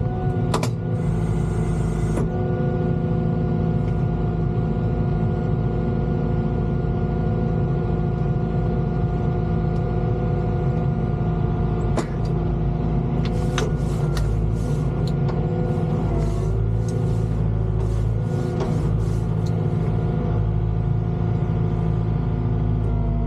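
Volvo EWR150E wheeled excavator running steadily, its diesel engine and hydraulics holding an even pitch. A few sharp clicks come through, and past the middle there is a quick run of short hissing noises.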